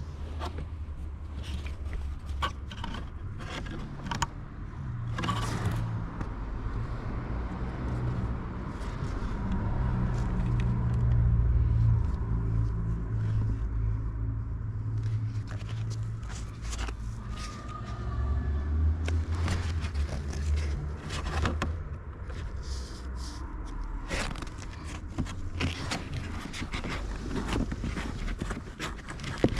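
Scraping and clicking of parts being handled, over a low steady rumble.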